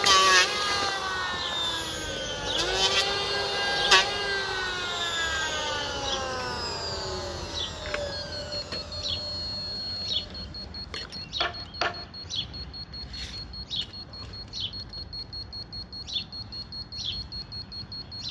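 A motor's whine falling steadily in pitch for the first several seconds, rising briefly once along the way, as if running down. Then a few sharp knocks and short high chirps.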